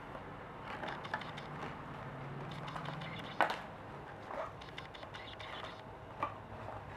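A small cardboard product box and its packaging being handled: scattered soft taps, clicks and rustles, with a sharper tap about three and a half seconds in.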